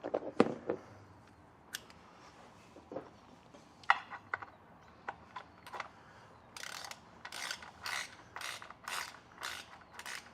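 Ratchet wrench turning in an oil drain plug. A few scattered clicks and taps come first, then from about six and a half seconds in a run of ratchet strokes, about two a second.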